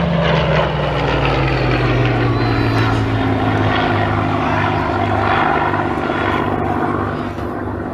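Supermarine Spitfire's piston engine droning as it flies past, the pitch falling over the first couple of seconds as it passes, then holding steady as it banks away, a little fainter near the end.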